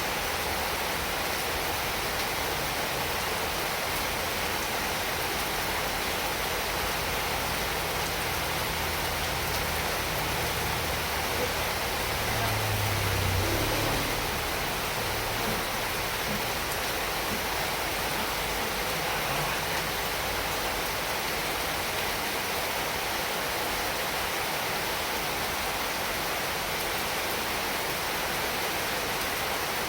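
Steady heavy rainfall, an even hiss throughout. A low rumble swells up about halfway through and fades a few seconds later.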